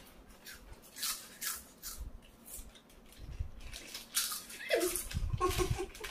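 Plastic potato-chip packets crinkling and chips being crunched, in a run of short rustles with the busiest stretch a little over four seconds in. Near the end a brief voiced sound slides down in pitch and then pulses a few times.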